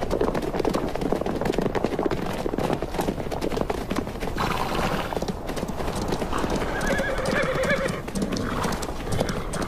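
Feral Namib desert horses: hoofbeats clattering throughout, with whinnies about four and a half seconds in and again around seven seconds in.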